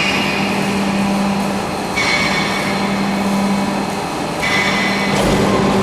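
CNC pipe-cutting machine running: a steady hum under a hiss that rises into a brighter, higher sound for a second or two, twice.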